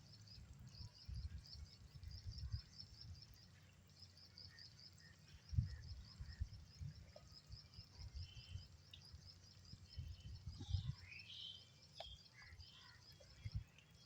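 Outdoor rural ambience: birds chirping and a steady, high, pulsing trill, with scattered soft low thumps.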